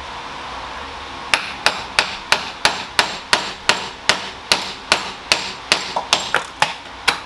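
Steady hammer blows on metal, about three a second, starting about a second in, each with a short metallic ring: hammering to drive a Saab 9-3 driveshaft out of its old mid-shaft support bearing, which is held in a vise.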